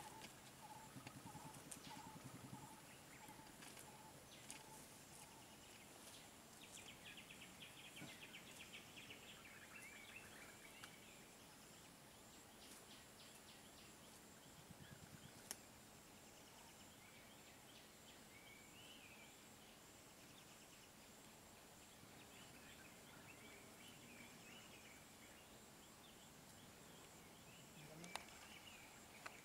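Near silence with faint outdoor ambience: scattered distant bird chirps and a steady high-pitched hum. There is a sharp click about fifteen seconds in and another near the end.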